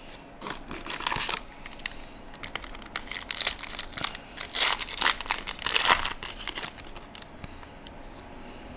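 Trading cards being handled and shuffled by hand: irregular crinkling and rustling in short bursts, dying down after about seven seconds.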